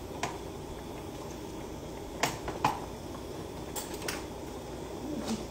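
Thick creamy mushroom sauce simmering in a skillet, with a handful of sharp pops as bubbles burst over a steady low background noise: two close together a little over two seconds in, two more around four seconds, and single ones near the start and near the end.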